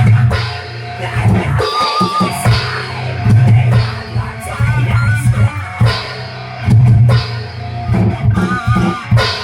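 Black metal band playing live in a rehearsal jam: electric guitar over heavy low-end and a drum kit, with wavering held notes about two, five and eight and a half seconds in.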